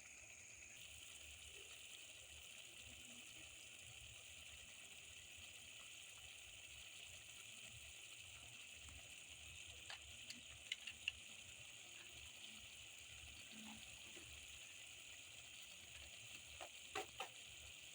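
Faint, steady sizzling of an onion-tomato curry base cooking in a pan. A stirring spoon clicks against the pan a few times, about ten seconds in and again near the end.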